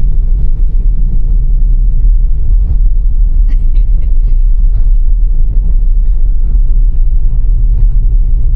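Tesla's tyres churning through snow while the car slides, heard inside the cabin as a loud, steady low rumble with faint scattered ticks.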